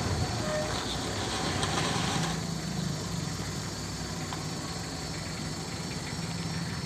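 Mitsubishi L300 van's engine idling steadily with a low hum. A brighter hiss lies over it for the first two seconds or so, then drops away.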